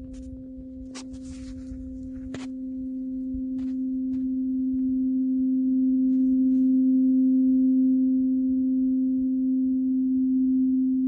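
A large tuning fork ringing one steady pure tone with a fainter octave above it, swelling louder over the first seven seconds as the tines come close to the microphone. Two short clicks sound about one and two and a half seconds in.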